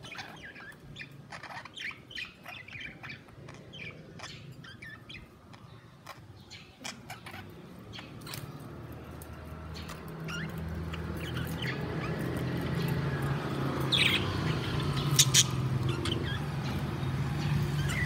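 Budgerigars chirping and chattering in many short calls. About halfway through a low steady hum comes up and grows louder beneath them, with a few sharp clicks.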